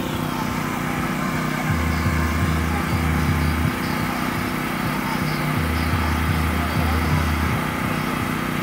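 Portable generator's small gasoline engine running steadily, together with the electric blower that keeps the inflatable water slide up: a continuous mechanical hum.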